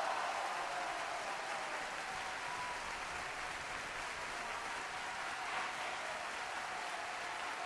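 Applause, many hands clapping in a steady, even wash.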